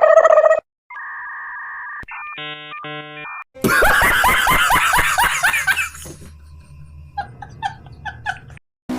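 A quick run of cartoon-style sound effects: a held tone, a steady buzz, electronic beeps, then a loud stretch of many falling squeals, then short plucked notes near the end.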